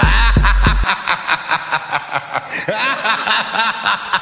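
Miami bass DJ mix intro: a deep 808 bass boom for the first second, then a chopped sample stuttering at about four pulses a second, with short chirping zaps over it.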